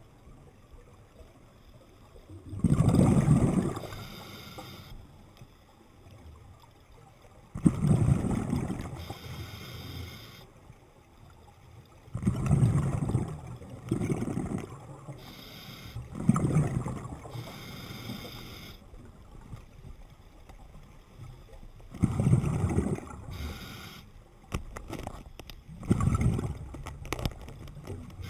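Scuba diver breathing through a regulator underwater: a bubbling rush of exhaled air about every four to five seconds, with a fainter hiss of inhalation in between.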